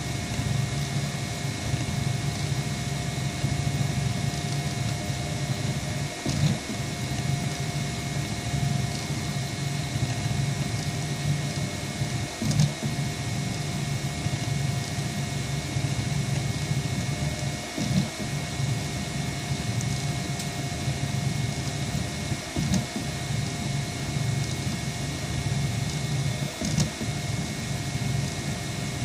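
Delta 3D printer running through a print: a steady whirring hum from its stepper motors and cooling fan, with a few steady tones over it. A short knock comes every five or six seconds.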